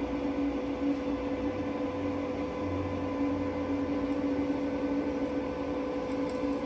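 Feed drive of a 1991 Kiheung KMB-U-6 milling machine running steadily as the table traverses along its cross (Y) axis, giving an even motor hum with a constant whine.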